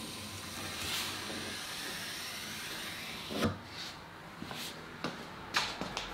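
Handling noise at a wooden workbench: a soft rubbing hiss for the first three seconds, then about five short wooden knocks and clunks in the second half.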